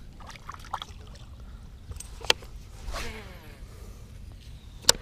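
A fishing rod cast with a baitcasting reel: a sharp click about two seconds in, a swish with a falling whir as the reel spool spins out around three seconds, and another sharp click near the end.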